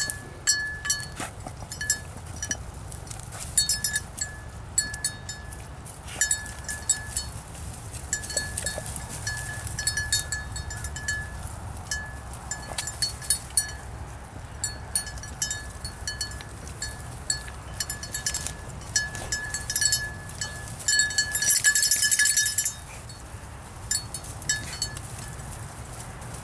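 Small metal collar bell or tags on a beagle jingling in short irregular shakes as the dog moves and sniffs, with a longer, busier spell of jingling about 21 seconds in.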